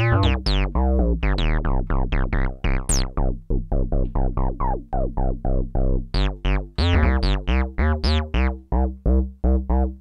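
Melbourne Instruments NINA synthesizer playing a 303-style acid bassline through its resonant four-pole ladder low-pass filter, about four short notes a second. Each note's tone closes quickly from bright to dull. From about six seconds in, the filter sweeps open brighter as the cutoff is turned up.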